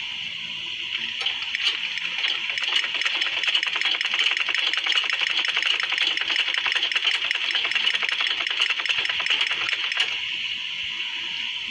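Sewing machine stitching, its needle going with a rapid, even clatter that starts about a second in and stops near the end.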